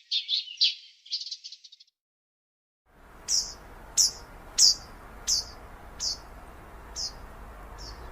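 Birdsong: a quick run of high chirping notes that breaks off about two seconds in, then after a second of silence a different bird repeating a short, high, downward-sliding whistle about every two-thirds of a second, eight times, fading near the end, over a low steady outdoor hiss.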